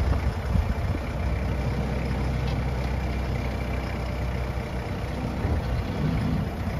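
Kubota loader tractor's diesel engine idling steadily, a low even rumble.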